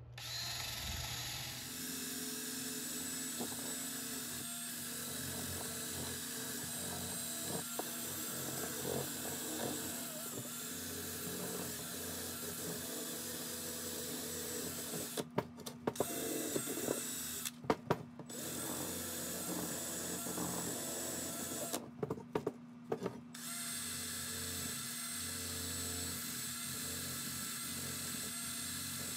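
Cordless drill spinning a brass wire wheel against the steel ball and shank of a trailer hitch, scrubbing off rust with a steady motor whine and a scratchy brushing hiss. The drill stops briefly three times in the second half.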